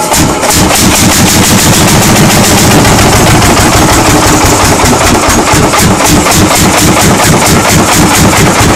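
Lanz Bulldog single-cylinder two-stroke hot-bulb engine running on its first start after 40 years, a loud, rapid, even popping beat of firing strokes.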